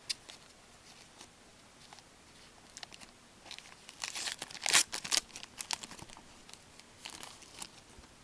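Wrapper of a 2011 Zenith hockey card pack being torn open and crinkled, in scattered crackling bursts, loudest about four to five seconds in.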